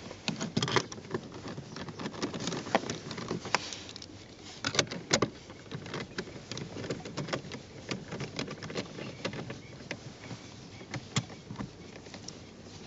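Hand screwdriver driving a screw into plastic dash trim: irregular small clicks and scrapes of tool on screw and plastic, with a few sharper knocks about five seconds in and again near eleven seconds.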